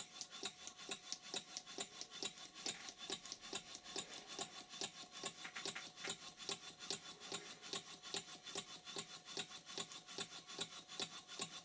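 Stuart 5A single-cylinder model steam engine running slowly on low-pressure compressed air, its exhaust puffing evenly about four times a second. The valve timing has just been set slightly later by moving the eccentric sheave.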